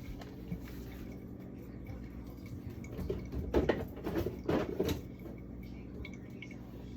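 Food containers and jars being handled in a fridge, with a few clattering knocks about three to five seconds in, over a steady low hum.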